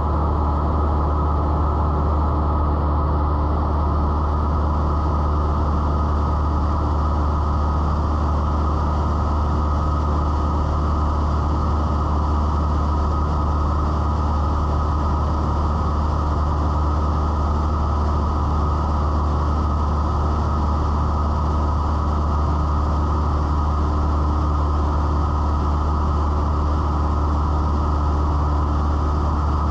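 Cessna 172's piston engine and propeller droning steadily in cruise flight, heard from inside the cabin as a low, even, muffled hum.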